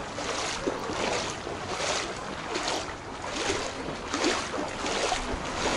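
Feet wading through shin-deep floodwater, the water sloshing and swishing with each stride in an even walking rhythm of a little more than one step a second.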